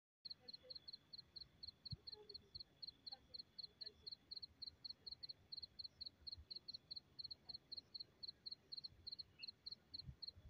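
Cricket chirping in a steady rhythm at night, about four to five short high chirps a second, over a faint continuous insect trill. The chirping starts a moment in, as the sound comes up after the silent intro.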